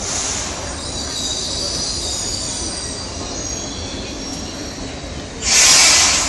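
Steel train wheels squealing in thin, high, steady tones over a low rumble as a train moves slowly through the station. A loud burst of hiss lasting about a second comes near the end.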